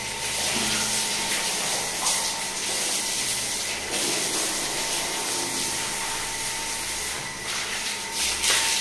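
Lakoni Laguna 70 pressure washer spraying a steady high-pressure jet of water, rinsing away foam: a continuous hiss.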